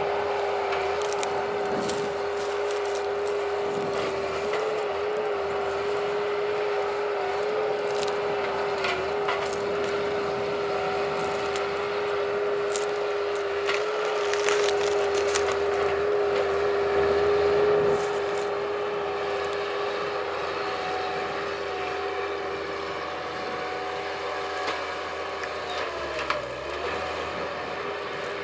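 Skid loader running steadily at high revs while its hydraulic tree shear cuts, with scattered sharp cracks and snaps of splintering wood. The engine note dips briefly near the end.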